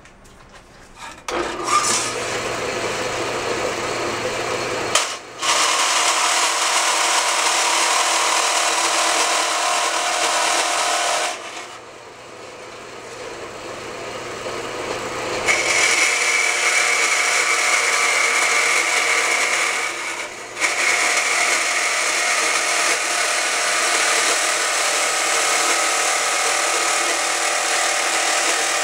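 Vertical metal-cutting bandsaw running and cutting through sheet steel, the blade rasping through the metal. It starts about a second in, drops quieter for a few seconds midway, then a steady high whine rides over the cutting for about five seconds.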